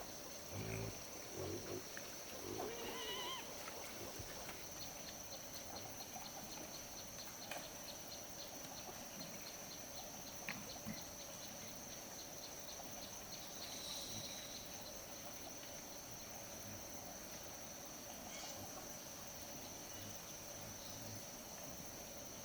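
Insects chirring steadily in the background, with a brief animal call in the first few seconds.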